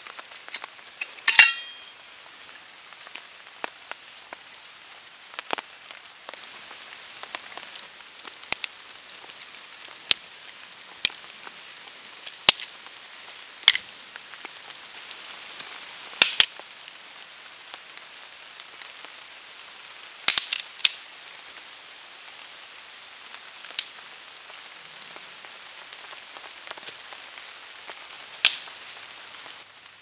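Steady rain, with about a dozen sharp cracks of dead sticks being snapped for firewood. Near the start comes a clink of nested metal camp pots.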